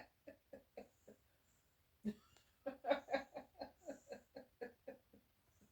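A person laughing in two runs of short rhythmic pulses, about four a second: a brief soft run, then after a pause a longer, louder run.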